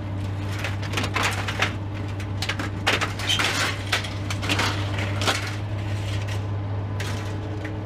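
Irregular clattering and knocking of handled objects over a steady low hum.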